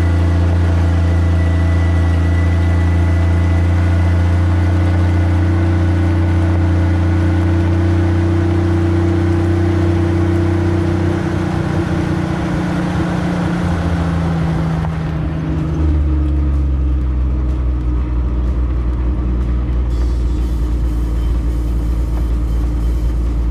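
1975 Jeep CJ5's engine running steadily as it drives slowly along a gravel trail, its note dropping a little near the middle. About sixteen seconds in the sound turns lower and duller as the recording moves from outside by the front wheel to inside the cab.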